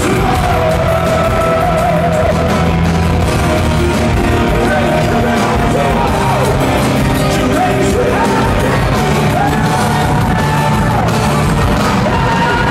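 Power metal band playing live in a hall: a male singer holding high notes with vibrato and sliding between pitches over distorted guitars, bass and drums.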